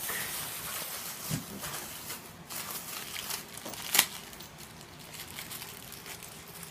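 Thin plastic bag crinkling as it is handled, with one sharp click about four seconds in.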